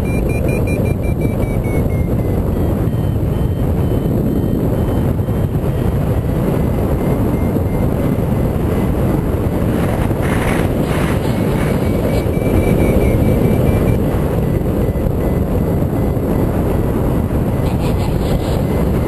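Steady rush of airflow over the microphone of a camera mounted on a paraglider's risers in flight, a dense low noise at an even level.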